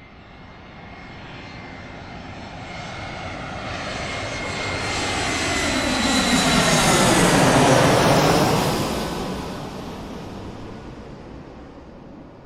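Airplane flying over: its engine sound builds steadily, is loudest about eight seconds in as it passes overhead, then fades as it moves away.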